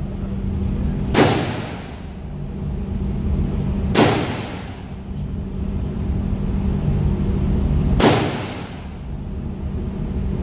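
Three single gunshots a few seconds apart, each followed by a long echoing tail, over a steady low hum.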